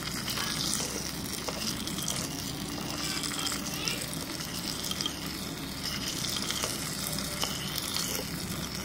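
Chopped onions and green chillies sizzling in hot oil in a clay pot, stirred with a spoon that scrapes and clicks against the pot now and then.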